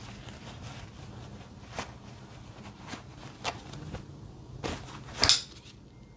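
Soft rustling of clothing with a few light clicks, then about five seconds in a louder swish and snap as a Spyderco Matriarch 2 folding knife is drawn from a jeans pocket and caught open by its Emerson wave hook.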